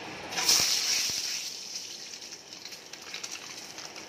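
Hot oil sizzling in a steel kadai as peeled boiled duck eggs are dropped in. The hiss surges about half a second in, then settles into a steady sizzle with a few faint clicks.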